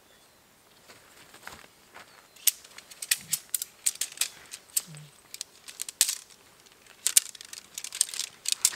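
Shock-corded tent pole sections clicking and clacking together as they are pulled apart and folded up, a run of sharp clicks in uneven clusters starting a couple of seconds in.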